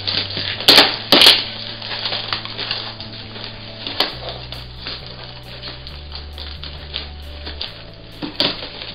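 Tape-wrapped cardboard and styrofoam packaging being ripped apart by hand: crackling, crunching and snapping, with two loud sharp cracks about a second in. Background music with a low bass line plays underneath.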